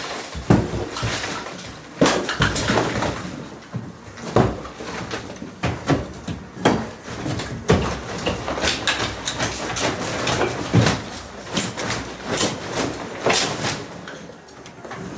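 Gypsum block partition wall being broken down by hand: irregular heavy blows, roughly one a second, with chunks of gypsum cracking, crashing and crumbling down between them.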